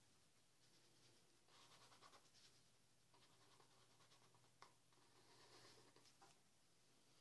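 Faint scratching of a pen drawing lines on sketchbook paper, in several short strokes, with a small click about four and a half seconds in.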